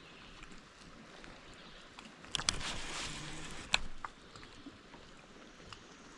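Water splashing at the side of a kayak for about a second, with two sharp knocks, over a steady background hiss.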